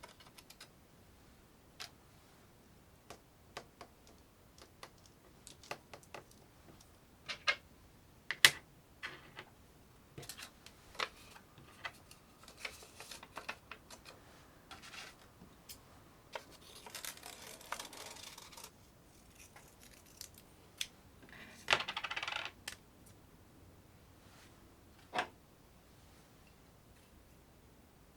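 Scattered clicks, taps and clinks of small hard parts being handled, with the sharpest click about eight seconds in and two brief rustles in the second half.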